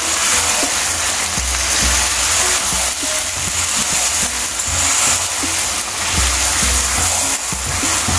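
Beef mince and potato curry frying and sizzling in oil in a pot on high heat, its liquid cooked off, with background music.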